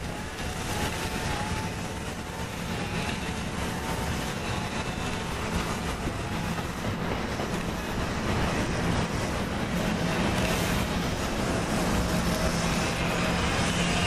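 NJ Transit Multilevel double-deck passenger coaches rolling past on the track, a steady rush of wheel and rail noise. A steady low hum from the electric locomotive at the tail of the train grows louder toward the end as it draws near.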